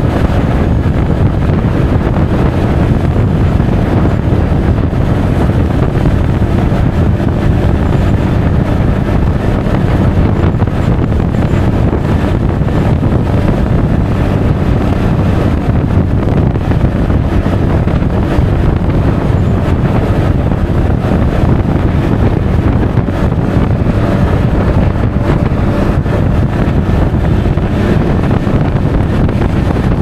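Steady wind rushing over the action camera's microphone on a moving Honda Forza 350 scooter, with the scooter's engine and tyre noise underneath.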